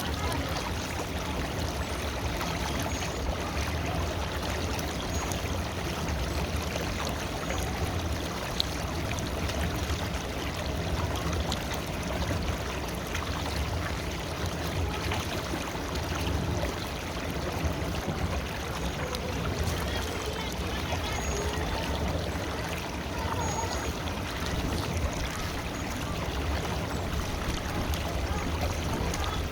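River water flowing steadily over stones, a continuous rushing and gurgling.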